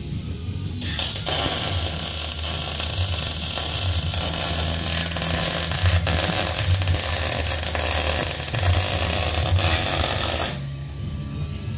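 Arc Captain MIG 200 MIG welder's arc running on a steel frame rail: a steady crackling hiss laid down as one continuous bead. It starts about a second in and stops suddenly about a second before the end.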